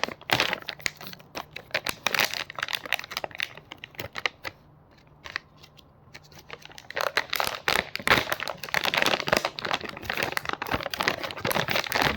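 Blind-box packaging wrapper being crinkled and torn open by hand. The crackling goes quiet for a couple of seconds in the middle, then resumes.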